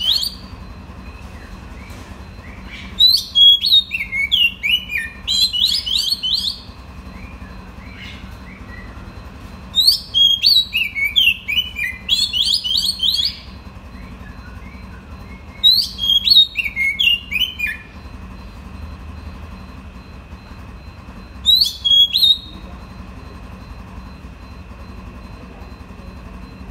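Oriental magpie-robin singing: four bursts of quick, high, sweeping whistled notes a few seconds apart, the last one short. This is the song a male magpie-robin uses to call a female.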